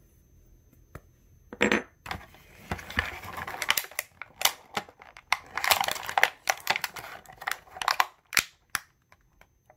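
Clear plastic packaging crinkling and crackling in the hands in irregular bursts, with a few sharp clicks, as small toy parts are worked out of it. It starts about a second and a half in and stops shortly before the end.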